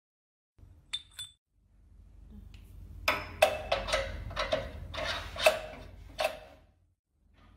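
Steel extruder parts clinking together: two light clinks about a second in, then a run of about seven ringing metal clanks between three and six seconds in as the barrel and screw are fitted onto the snack extruder. A faint low hum runs underneath.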